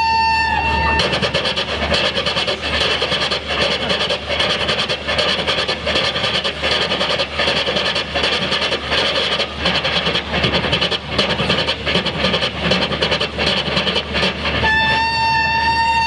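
A man imitating a train with his mouth through a microphone and PA: a steady high whistle, then a long rapid clickety-clack of wheels running over rail joints, and the whistle again near the end.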